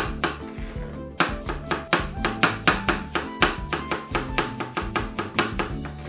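Kitchen knife dicing peeled apple on a plastic cutting board: quick, steady chops, about four a second, over background music.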